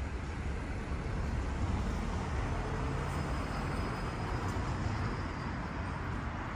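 Road traffic: a car passing on the street, its tyre and engine noise swelling about two seconds in and then slowly fading.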